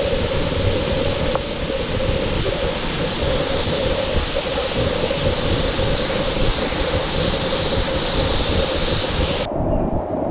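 Waterfall: a loud, steady rush of falling water. Near the end the hiss drops away suddenly, leaving a duller rumble.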